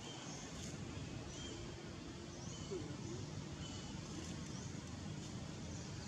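Steady outdoor background noise with several short, high bird chirps scattered through it.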